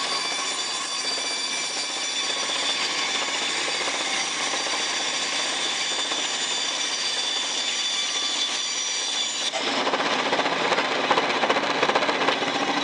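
Power saw cutting through a thick block of wood, with a steady high whine. The cut grows heavier and denser about three-quarters of the way through.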